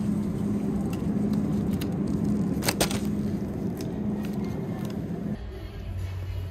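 Store ambience: a steady hum over a bed of background noise, with a single sharp clack just before three seconds in. About five seconds in the hum drops lower and the background changes.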